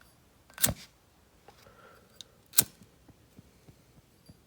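Two sharp metallic clicks about two seconds apart, typical of a Zippo lighter's hinged lid being flipped open and snapped shut, with faint small handling sounds between.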